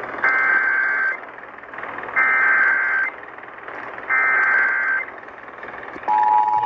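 Emergency Alert System SAME header: three short bursts of screechy digital data tones, each just under a second long and about two seconds apart, over radio hiss. Near the end the steady two-tone EAS attention signal begins, announcing a weather warning.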